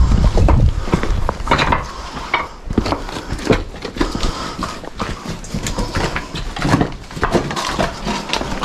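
Footsteps of people walking on a hard floor: a run of irregular knocks and scuffs, with a low rumble in the first half second.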